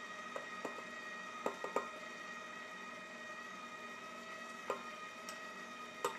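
Bowl-lift stand mixer running on low with a steady motor whine, while a metal measuring cup knocks against the rim of the steel bowl with several short, ringing taps in small clusters as flour is emptied in.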